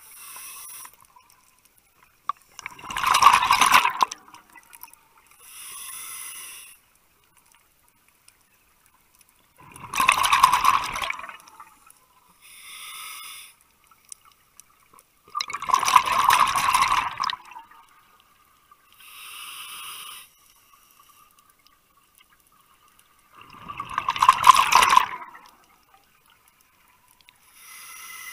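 Scuba breathing through a regulator underwater: four loud bubbling exhalations, each about a second and a half long, alternate with quieter inhalation hisses, one breath about every six to seven seconds.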